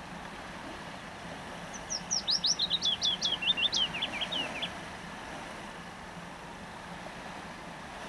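A small songbird sings one phrase of about three seconds, starting about two seconds in: some twenty quick, sharply down-slurred notes that step lower in pitch towards the end.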